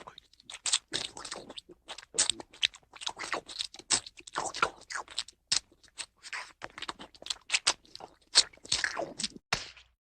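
Cartoon crunching sound effect: a long run of quick, irregular crunches, like something crisp being chewed.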